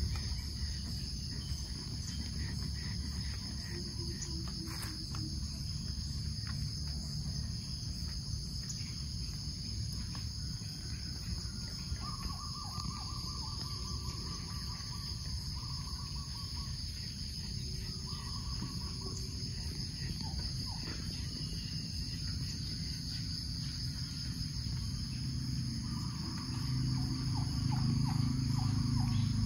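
Steady, high-pitched chorus of insects, such as crickets, in forest. Short calls from some other animal come through around the middle and again near the end, and a low rumble grows louder over the last few seconds.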